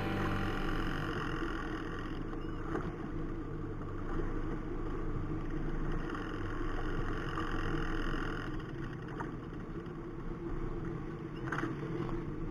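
Bayliner Capri's 2.3-litre Ford four-cylinder engine with OMC Cobra sterndrive running steadily under way, under a constant rush of wind and water past the hull. A few short knocks come near the end.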